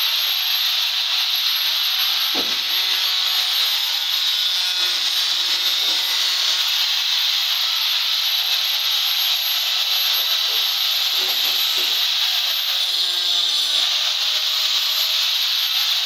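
A loud, steady hiss that stays even throughout, with a single short knock about two and a half seconds in.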